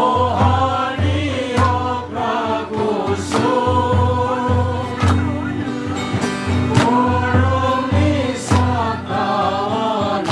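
A group of people singing a hymn together, with a drum keeping a steady beat and sharper strikes about every second and a half.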